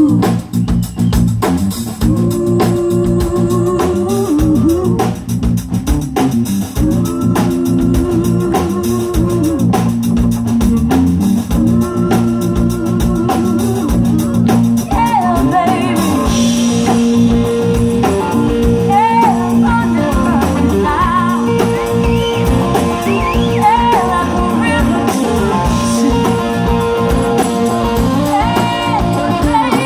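Live band playing a song: women's voices singing over drum kit and electric bass, with long held notes at first and a busier vocal line from about halfway.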